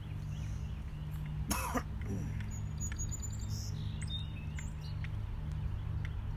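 One short cough about a second and a half in, over a steady low outdoor hum, with a few light clicks and faint bird chirps.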